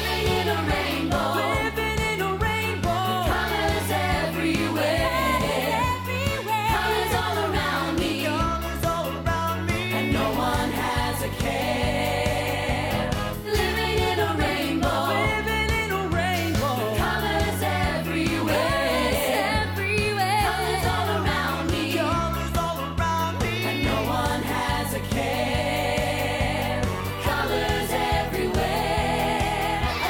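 A children's pop song, with several voices singing together over a steady, repeating bass line and beat.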